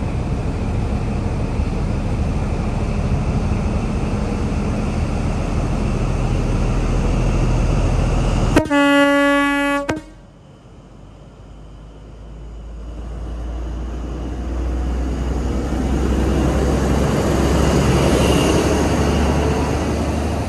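Class 43 HST diesel power car running slowly into a station with a steady rumble. About eight and a half seconds in, its horn sounds once for about a second and a half. The sound then drops suddenly and builds again as the power car draws past.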